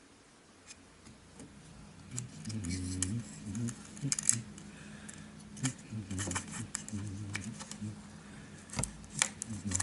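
Small sharp clicks and taps from fingers handling rigging thread and tiny wooden deadeyes on a wooden jig, scattered irregularly, the loudest about four seconds in and near the end, over a steady low hum.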